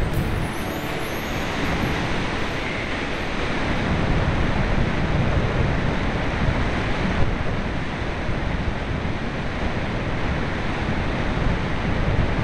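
Wind rushing over the microphone of a camera carried aboard a Parkzone Radian model glider in flight: a loud, steady rush of airflow noise with no clear tone in it.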